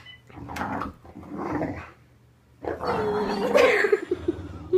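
Pet dog growling in play: two short growls, then a pause and a longer, louder growl that wavers in pitch.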